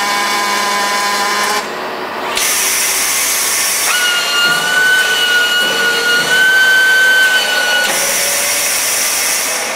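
Robotic welding cell working. The robot's servo motors whine steadily at first. About two seconds in, a welding arc starts with a loud steady hiss that lasts about seven seconds, joined in the middle by a steady high whine.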